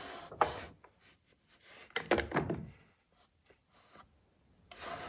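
Wooden stock and the indexing jig being handled and slid on the saw table: short bouts of wood rubbing and sliding with light knocks, at the start, around two seconds in, and again near the end.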